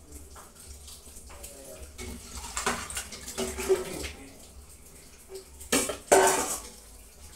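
Stainless steel bowl and pot clanking as boiled meat and stock are poured from the bowl into the pot, with the liquid pouring in. The loudest clatter of metal comes about six seconds in.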